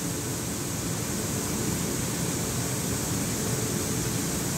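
Truck-loading belt conveyor running, carrying a sack up into a truck: a steady mechanical hum with a hiss over it.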